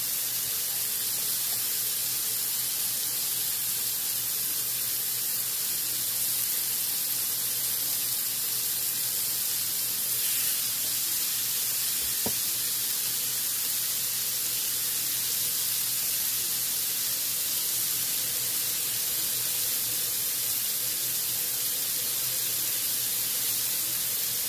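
Ground-beef hamburger steak patties sizzling steadily on a hot griddle, with one small click about halfway through.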